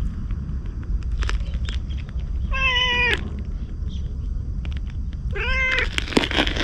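Orange tabby cat meowing twice, two short meows about three seconds apart, the second rising then falling. A steady low rumble runs underneath, and a few crackling scuffs come near the end.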